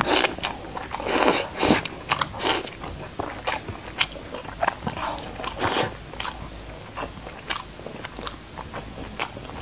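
Close-miked mouth sounds of biting and chewing thick slices of glazed pork belly: a dense run of short bite and chew noises, loudest about a second in and again near six seconds.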